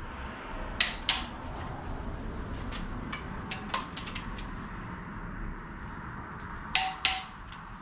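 Sharp metallic clicks of a wrench working the cylinder head bolts on a Cadillac Northstar V8: two quick double clicks, one about a second in and one near the end, with lighter taps and clicks between.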